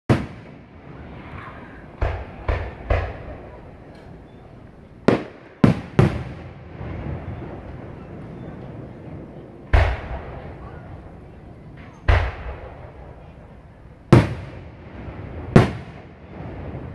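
Aerial firework shells bursting overhead: about eleven sharp booms, some in quick runs of two or three, each trailing off in a rolling echo.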